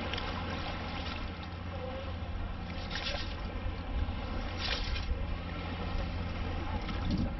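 Water swishing and draining through a long-handled mesh sand scoop as it is shaken in shallow water to sift sand from shells, with two brief stronger swishes near the middle. A steady low rumble runs underneath.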